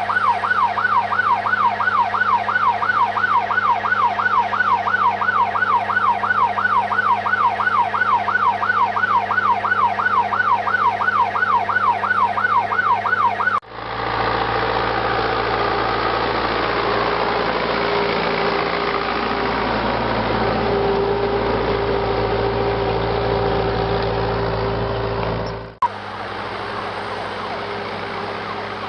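An emergency-vehicle siren yelping, its pitch sweeping rapidly up and down about three times a second. It cuts off sharply about halfway through and a steady engine-like running noise with a low hum takes over, dropping to a quieter steady sound near the end.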